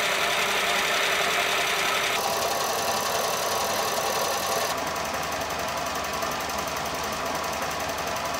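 Homemade belt-driven peanut oil press running, a steady, dense mechanical clatter. The sound shifts abruptly about two seconds in and again about five seconds in.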